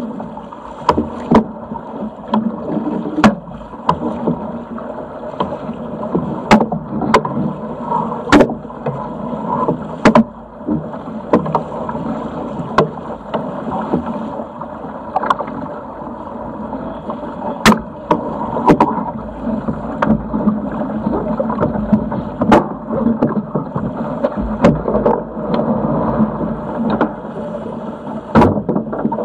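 Sigma 8 metre racing yacht sailing through chop: a steady rush of water along the hull with wind, broken by frequent irregular sharp slaps and knocks.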